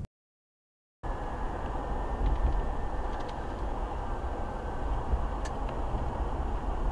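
A second of dead silence, then the steady low rumble of a car driving, recorded from inside the cabin, with a few faint ticks.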